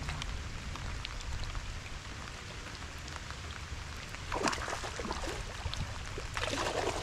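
Steady rain pattering on the lake and on the angler's rain gear, a fine scatter of drop ticks, with two louder rushes of noise about four and a half and six and a half seconds in.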